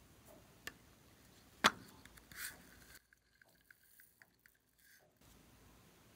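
Small handling sounds: one sharp click about a second and a half in, a brief rustle soon after, then a few faint light clicks as plastic paint bottles are picked up.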